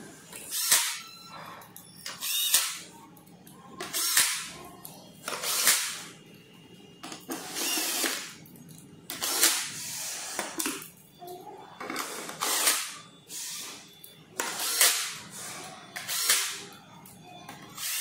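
Cordless drill/driver running in short bursts, about ten times, each burst driving in one of the screws that hold the scooter's metal deck cover plate.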